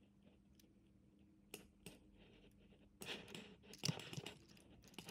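Faint clicking of a computer keyboard and mouse: two separate clicks a little after the start, then a quicker run of taps and clicks in the second half.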